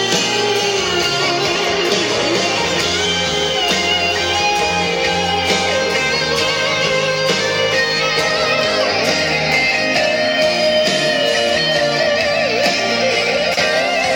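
Instrumental break of a gospel pop song: band music led by a melodic electric guitar over bass and drums.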